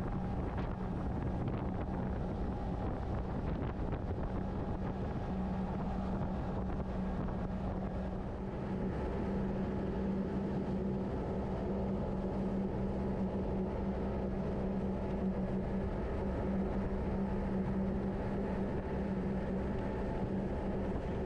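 Boat's outboard motor running steadily under way, a constant drone with one strong low tone, with wind noise on the microphone.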